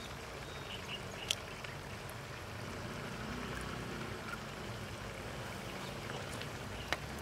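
Eggs cracked open over a wok of simmering curry: a sharp shell click about a second in and another near the end, over a steady low hiss.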